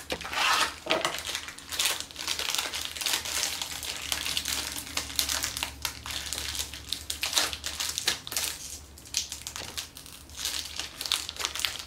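Pocky snack packaging being opened by hand: the plastic inner wrapper crinkles and crackles in a long run of short rustles as it is struggled with.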